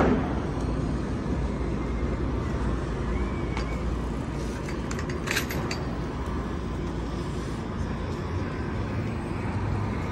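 Steady Manhattan street traffic: a low rumble of passing cars, with a sharp knock right at the start and a brief high clinking about five seconds in.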